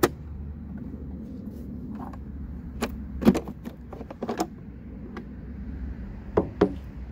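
Plastic latches clicking open and the plastic battery and cabin-air cover of a Mercedes C350 (W204) knocking as it is worked free and lifted out. There is a string of sharp clicks, the loudest about three seconds in and two more near the end, over a low steady hum.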